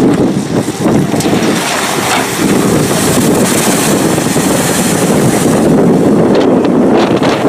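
A Splashtours amphibious bus plunging down a ramp into the water and ploughing through it: a loud, steady rush of splashing water, with wind buffeting the microphone.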